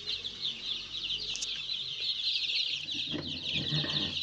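A brooder full of young Joper (ayam kampung super) chicks peeping continuously: a dense chorus of many short, high cheeps overlapping one another.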